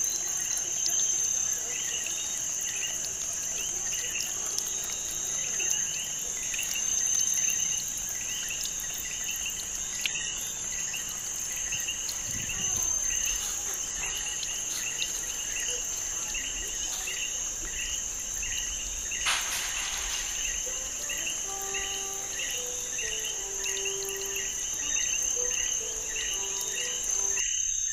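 Cricket chirping steadily, about two short chirps a second, over a constant high-pitched whine.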